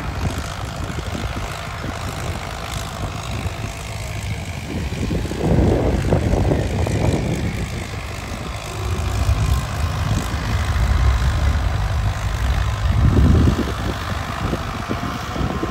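A 605 tractor's diesel engine runs steadily under load as it pulls a maize planter. The rumble swells louder twice, about a third of the way in and again in the second half.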